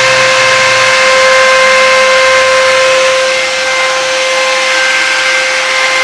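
Homemade wooden, Arduino-controlled CNC mill running while milling acrylic: a steady high-pitched motor whine with a hiss over it. The level dips slightly about three seconds in.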